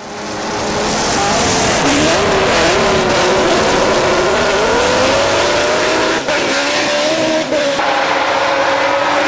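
Judd V8 racing engine of a BMW E36 hillclimb car running at high revs, its pitch climbing through the first half and then holding high, with two brief drops in sound around six and seven and a half seconds in.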